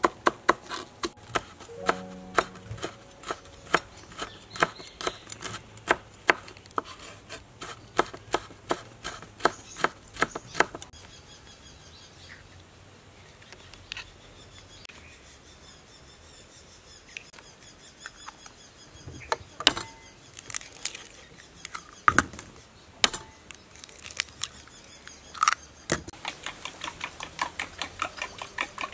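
Kitchen prep sounds: a fast run of sharp taps, like a knife chopping on a wooden board, for about the first ten seconds. Then a quieter stretch with faint bird chirps and a few single sharp taps. Near the end comes rapid clicking, like a spoon working in a ceramic bowl.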